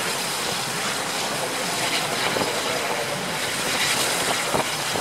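Steam-hauled passenger train running along the line, heard from an open coach window: a steady rush of wind and wheel noise on the rails.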